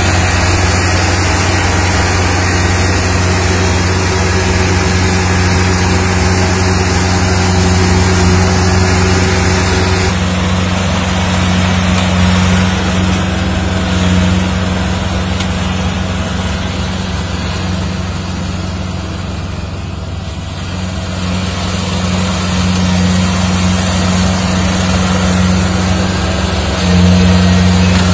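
Kubota Pro488 combine harvester's diesel engine running steadily with a deep hum. It eases off a little about two-thirds of the way through and comes back louder near the end.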